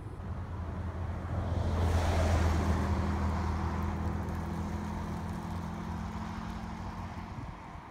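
2017 Ford Raptor pickup with its 3.5-litre twin-turbo EcoBoost V6 driving past and away: a steady low engine hum under tyre noise on asphalt. The tyre noise swells to its loudest about two seconds in and then slowly fades, and the engine hum drops out near the end.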